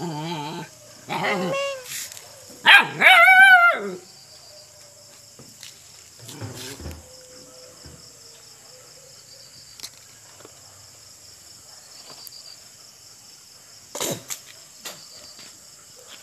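Kitten meowing: three loud mews in the first four seconds, the last one longest and rising then falling in pitch. After that only faint scuffs and clicks.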